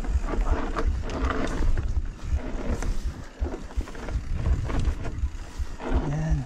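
Mountain bike rattling over a rough trail, with uneven clicks and knocks from the bike over a heavy wind rumble on the microphone.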